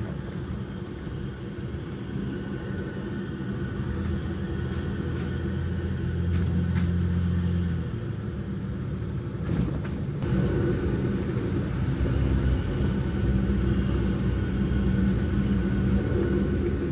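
Jeep Gladiator driving slowly on a gravel forest road, heard from inside the cab: a steady low engine and tyre rumble, with a few brief clicks along the way.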